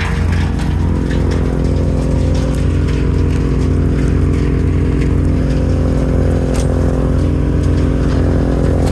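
An engine running steadily at constant speed, with a low throb pulsing about twice a second.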